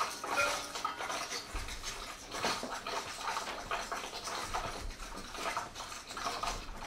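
Sparse improvised percussion: irregular clicks, scrapes and light clinks of small hard objects. The last ringing tones of struck mallet instruments fade out in the first half-second.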